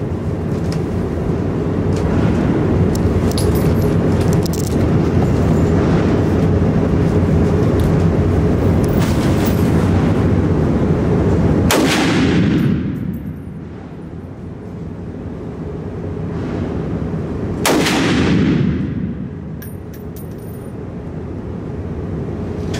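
Gunfire at an indoor shooting range: a steady loud rumble with faint cracks for about the first twelve seconds, then two loud gunshots about six seconds apart, each ringing out in a long echo.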